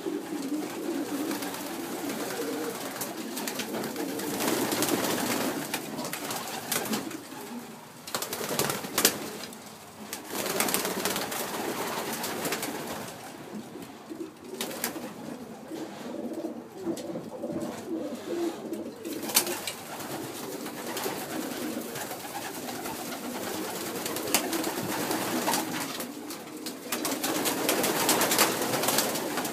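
A loft full of pigeons cooing together, a steady overlapping throaty burble, with two sharp knocks, one about nine seconds in and one near twenty seconds.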